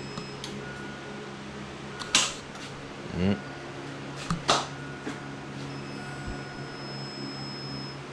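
Starter clicking twice, about two seconds apart, over a steady electrical hum, without cranking the rebuilt Toyota 7M-GTE straight-six: the starter engages but does not turn the engine over.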